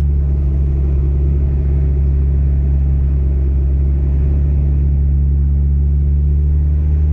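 A car on the move: a steady low rumble of engine and tyre noise with a constant hum, holding an even level throughout.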